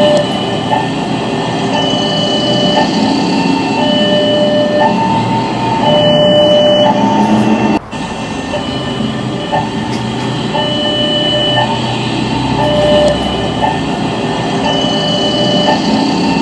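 Indonesian railroad crossing alarm sounding its electronic two-tone warning, alternating between a lower and a higher tone about once a second, over the rumble of a passing train. The sound drops out briefly about eight seconds in.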